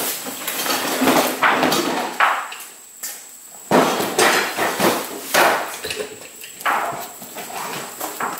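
Hand truck loaded with a heavy boxed generator, about 238 pounds, rolling over a concrete driveway: wheels rumbling and clattering, with irregular knocks and surges.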